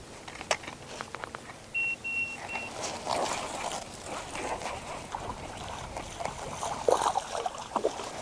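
Three short electronic beeps, evenly spaced and all at the same high pitch, about two seconds in. Around them come clicks, knocks and rustling from fishing gear being handled on a kayak, with the loudest knocks near the end.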